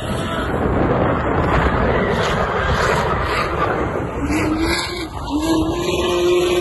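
Drift cars at high revs, a 1JZ inline-six Nissan Silvia S15 among them, with engine noise and tyre skidding mixed into a dense wash of sound. From about four seconds in, a steady high engine note is held, rising slightly.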